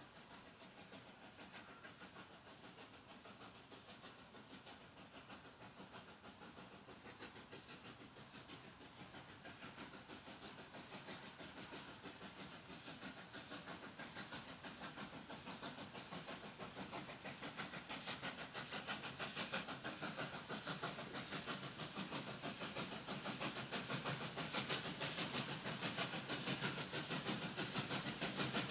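Victorian Railways K class steam locomotive K153 approaching under steam, its exhaust chuffing in an even rhythm that grows steadily louder as it draws near.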